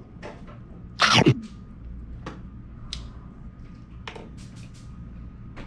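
Metal serving tongs and utensils clicking against dishes and trays a few times as food is served onto a plate. About a second in there is a single short, loud burst that is louder than the clicks.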